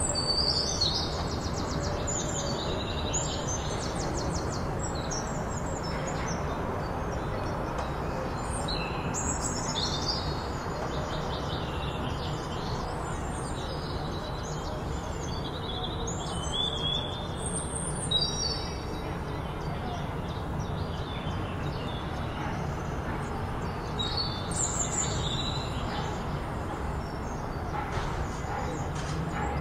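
Small birds chirping and trilling in short, repeated phrases over a steady background hiss of outdoor ambience.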